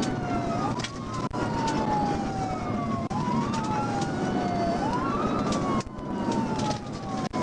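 Police car siren on wail, rising quickly and falling slowly about every two and a half seconds, over steady road noise of the moving patrol car.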